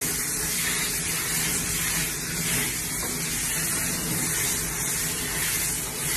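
Handheld shower sprayer spraying water onto a wet pug, a steady hiss.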